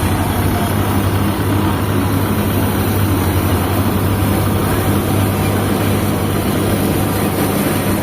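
Kubota MU5502 tractor's diesel engine running steadily at constant speed with a low, even drone, as when working a harvester in the field.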